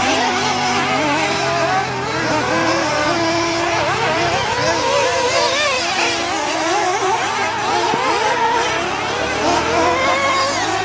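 Several 1/8-scale nitro RC off-road buggies racing, their small engines revving up and down together, with many pitches rising, falling and overlapping.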